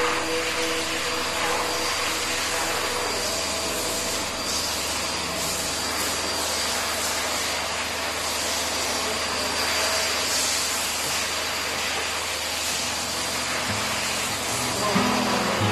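Hose-type pet grooming dryer (a high-velocity blower) running steadily, blowing air through a dog's thick coat: a constant rush of air with a thin high whine. Guitar music comes in near the end.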